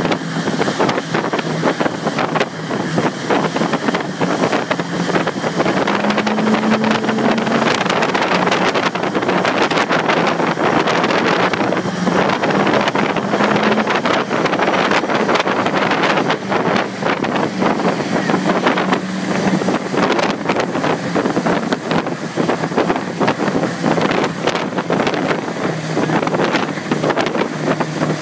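Speedboat engine running at speed, with heavy wind buffeting the microphone and water spray rushing over it. The engine note shifts a little in pitch now and then.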